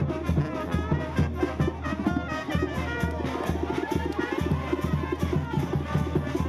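Brass band music with drums keeping a steady beat.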